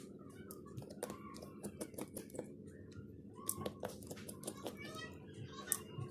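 Irregular run of small sharp clicks and taps as a precision screwdriver works the tiny screws and plastic cover on a smartphone's inner frame, over a steady low hum.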